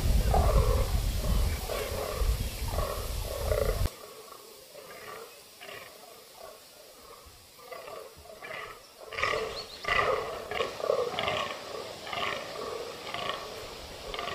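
Fallow bucks croaking in the rut: a run of short, deep, belching grunts, repeated about once a second. Wind rumbles on the microphone until an abrupt cut about four seconds in. After the cut the croaks are fainter, then louder again from about nine seconds in.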